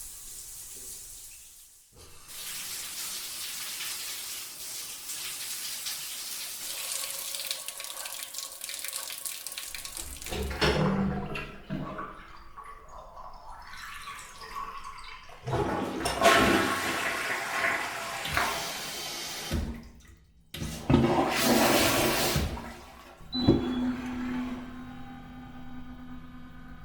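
A run of short hotel bathroom water recordings: a steady hissing spray for several seconds, then separate rushes of water that include a toilet flushing. Near the end a tap or pipe gives a steady hum.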